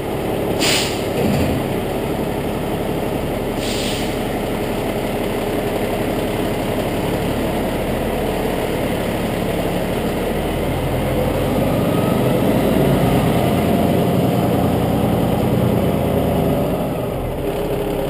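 Fire truck's diesel engine running as the truck pulls out of the station, working a little harder partway through. Two short air hisses, typical of air brakes releasing, come about a second in and again near four seconds.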